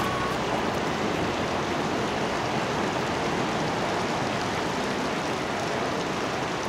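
Steady, even hiss of rain falling.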